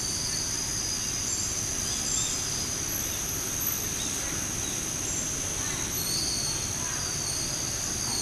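Steady high-pitched insect drone in the trees, with short high chirps coming and going above it over a low background rumble.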